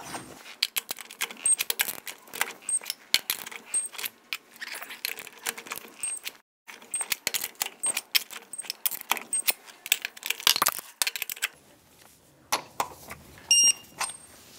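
A ratcheting torque wrench clicking and rattling as wheel lug nuts are tightened to 100 foot-pounds, with short high electronic beeps now and then, a louder beep at the start and another near the end.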